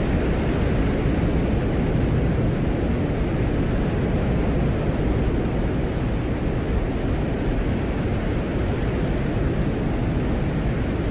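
Soviet Venera lander's microphone recording from the surface of Venus: a steady low rushing noise with static hiss over it, which sounds like the soft blowing of the Venusian wind.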